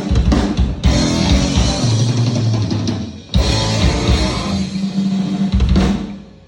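Heavy rock drum kit played hard, with bass drum and snare, and sustained guitar and bass chords under it. The whole band stops sharply just after three seconds, comes back in, then dies away near the end.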